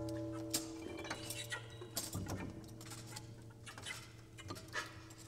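Free-improvised music: a low note struck just before rings on and slowly fades, while small metallic clicks, taps and clinks are scattered sparsely over it.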